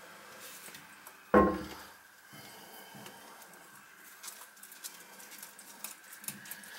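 Porcelain toilet set down over its closet bolts onto the tile floor: one heavy knock with a short ringing decay about a second and a half in, then light clicks and taps of small parts.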